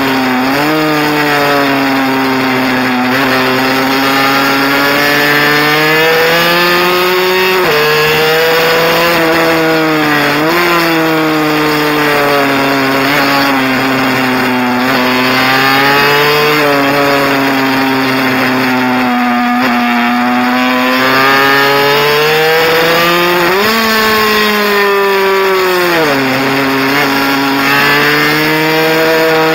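Mini bike engine running hard, its pitch climbing and falling again and again as the throttle is opened and rolled off, with a few abrupt drops and jumps in pitch.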